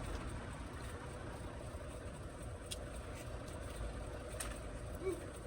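Semi truck's diesel engine running with a steady low rumble and a faint hum.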